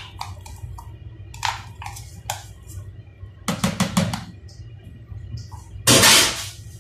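A spoon knocking and scraping against a plastic tub and the rim of a plastic bucket as an ingredient is scraped out: scattered sharp taps, with a quick run of several knocks about three and a half seconds in. Near the end comes the loudest sound, a brief loud rushing noise lasting about half a second.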